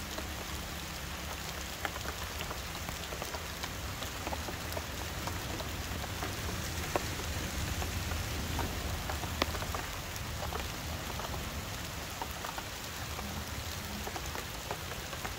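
Steady rain falling on leaves and ground, with many separate drops ticking close by.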